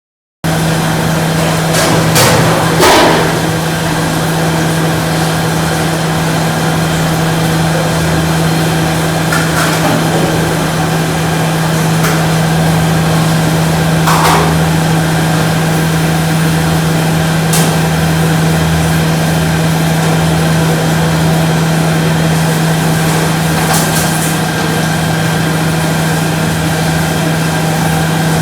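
Electric instant rice grinder running, a steady motor hum that comes in abruptly, with a few light knocks and clicks, the loudest about two to three seconds in.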